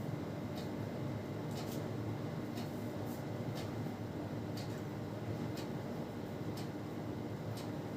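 Steady low mechanical hum, like a fan or air conditioner running, with a faint high tick about once a second.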